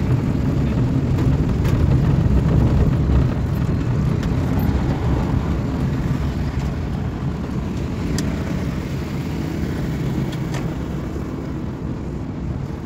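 Engine and road noise of a moving car heard from inside its cabin: a steady low rumble that eases off in the second half as the car slows to pull over, with a few faint clicks.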